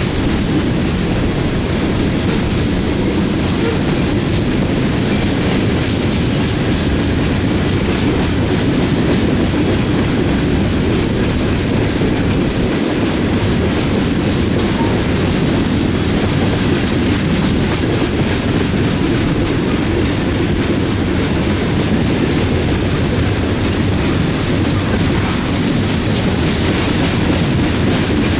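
Freight train of open hopper cars rolling past, a steady loud rumble of steel wheels on the rails with clickety-clack.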